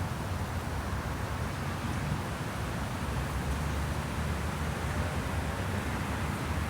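Spring wind blowing, a steady rushing with a flickering low rumble where gusts buffet the microphone.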